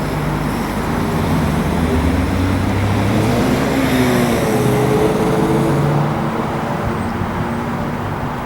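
A freight train rolling past with a steady, loud rumble, a few tones dipping in pitch around the middle.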